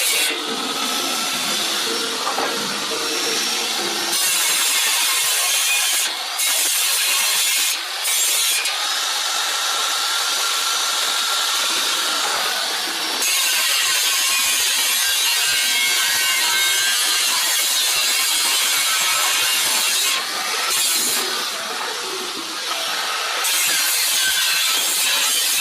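Power tool cutting through the sheet steel of a Honda Civic EK hatchback's rusted quarter panel: a continuous high-pitched cutting noise with a faint whine, easing off briefly a few times.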